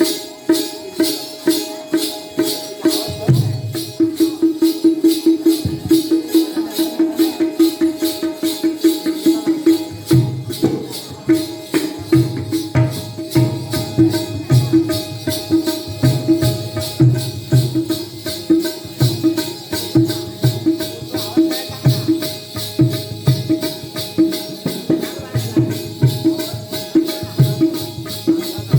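Instrumental accompaniment for a Jakhadi folk dance: small hand cymbals or jingles struck in a fast, even beat over a drum playing repeating patterns and a held note.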